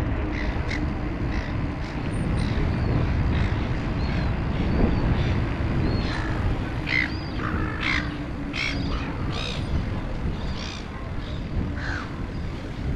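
Birds calling in short, sharp calls, a few at first and then a quick cluster from about six to ten seconds in. Beneath them is a steady low rumble of wind on the microphone.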